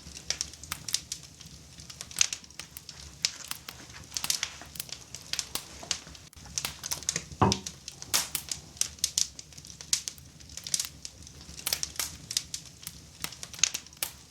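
Wood fire crackling in a cast-iron fireplace firebox: irregular sharp pops and snaps, with one louder, deeper pop about seven seconds in.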